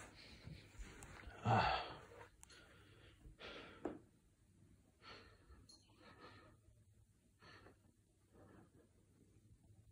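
A person breathing close to the microphone: a series of soft breaths about a second apart, the loudest about a second and a half in.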